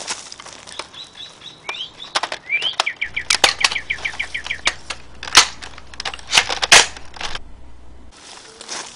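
A bird chirping in a quick series of short repeated notes, about six a second, over sharp crunches and snaps like steps in dry leaves, the loudest a little past halfway.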